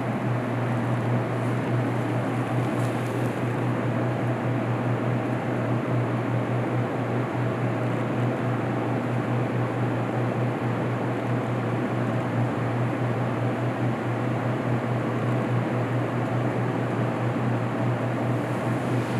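Steady low hum with a constant rushing noise over it, like a ventilation fan or air handler, unchanging throughout.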